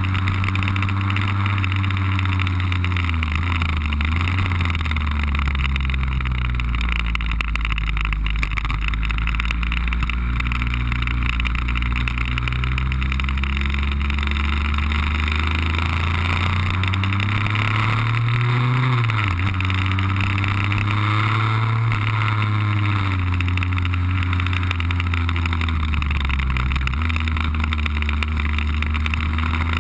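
Lambretta cut-down scooter's RB20 two-stroke engine running at speed, its note rising and falling with the throttle: it climbs steadily for several seconds, drops sharply about two-thirds of the way through, and dips again near the end. A steady hiss of wind on the microphone runs under it.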